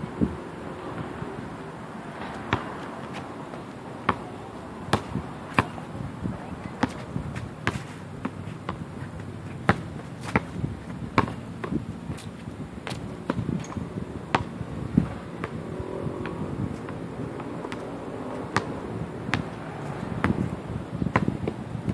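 A basketball bouncing on an outdoor concrete court as it is dribbled: an uneven run of sharp bounces, roughly one or two a second, over steady background noise.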